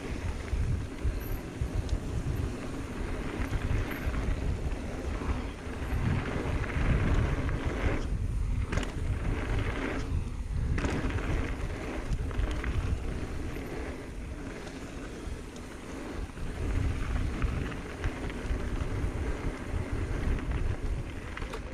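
Mountain bike riding down a dusty dirt trail: tyres rolling over dirt and leaves, with wind rumbling on the camera microphone. The tyre hiss dips briefly twice, about eight and ten seconds in.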